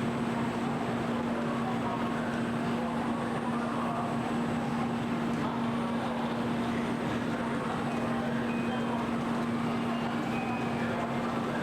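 Railway station platform ambience: a steady low hum under an even background noise, with faint voices in the crowd.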